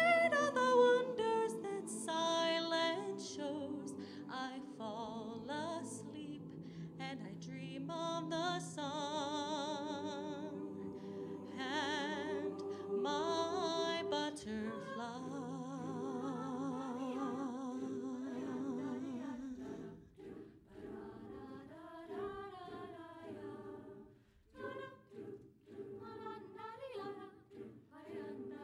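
A female solo voice sings long wordless runs with a wide vibrato over sustained choir voices. About two-thirds of the way through, the music drops in loudness and the choir sings short, detached notes.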